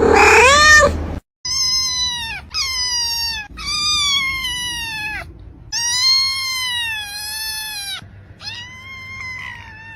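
A cat meowing repeatedly: five long, drawn-out meows that each fall in pitch, the last one fainter, after a short call about a second in.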